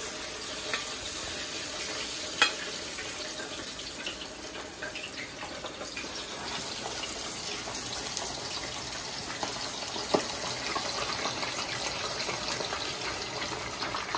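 Whole seasoned fish deep-frying in hot oil in a pan: a steady sizzle with dense crackling as the oil bubbles hard around the fish. A sharp knock about two seconds in.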